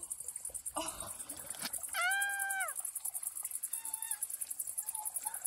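A woman's short high-pitched cry about two seconds in, its pitch held and then falling, as she steps into the hot spring's scalding water; a fainter short cry follows near four seconds. A steady high hiss runs underneath.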